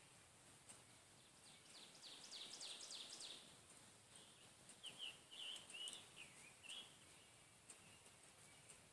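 Faint songbird singing over a quiet background: a quick run of short falling notes, then a few chirps about five seconds in.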